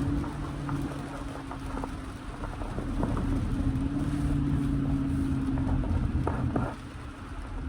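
Jeep Grand Cherokee's Hemi V8 droning steadily at cruise, heard from inside the cabin over tyre and road rumble, with a few light ticks. The engine drone drops away near the end.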